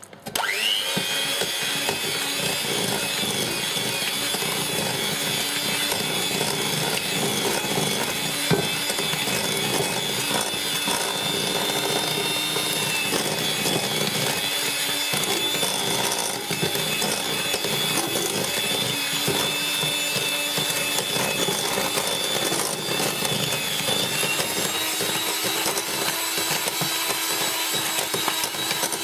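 Electric hand mixer switched on, its motor rising quickly to speed and then running steadily as the beaters mix eggs into creamed butter and sugar.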